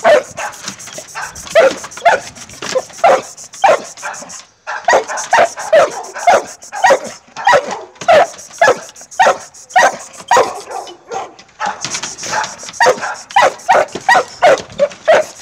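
Dog barking over and over, about two to three barks a second, with a couple of brief pauses.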